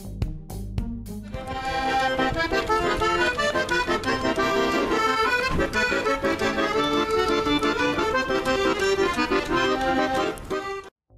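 Accordion played on the street, a melody over chords, coming in about a second in and cutting off suddenly near the end. Background music with a beat is heard briefly before it.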